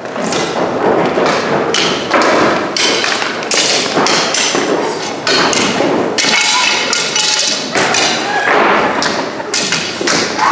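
Stage-combat fight with many performers at once: a dense, continuous run of knocks and thuds as prop swords strike each other and feet stamp and scuff on the hall floor.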